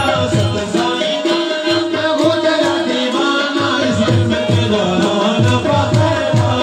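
Qawwali music: singing over a harmonium's held and stepping notes, with hand drums keeping a steady beat.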